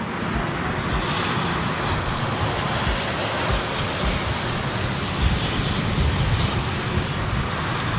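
Steady roar of a Boeing 787 airliner's jet engines on a stormy crosswind approach, mixed with gusty wind buffeting the microphone.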